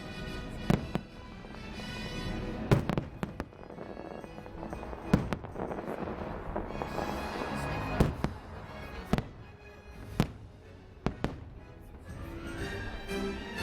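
Fireworks display: sharp firework bangs, about ten at irregular intervals a second or two apart, over continuous music.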